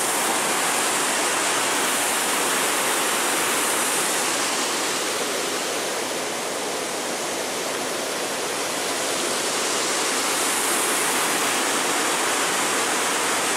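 Water gushing down through an open sluice flood gate: a loud, steady rush of falling water.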